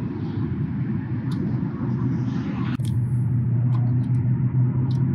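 Steady low rumble with a hum that grows stronger about halfway through, and a few light clicks of a small part being handled and fitted by hand.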